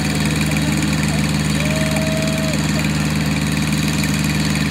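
CASE backhoe's diesel engine running at a steady idle, with one short steady tone about two seconds in.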